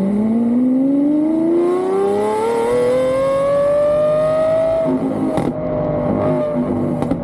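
Car engine accelerating hard, its pitch rising steadily for about five seconds, then dropping as it shifts up and pulling on in the next gear.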